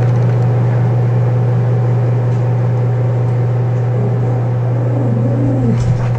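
A loud, steady low hum, like a motor or electrical drone, with a short wavering tone rising and falling near the end.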